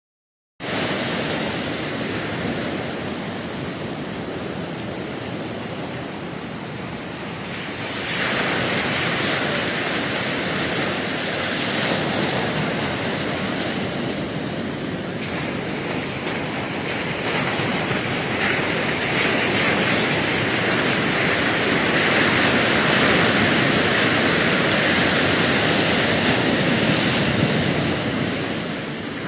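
Ocean surf: a steady rush of waves breaking on the shore, stepping louder about eight seconds in.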